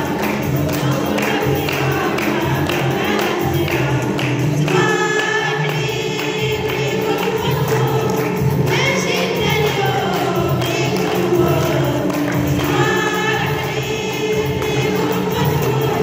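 A group of voices singing a scout song, a nasheed, with musical backing.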